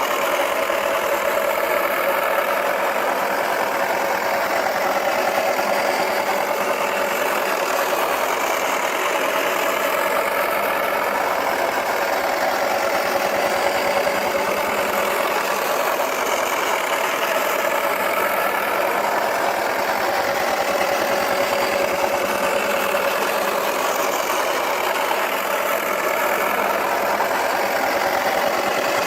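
Toy washing machine running, loaded with plastic balls: a steady whirring of its small motor and spinning drum that stops near the end.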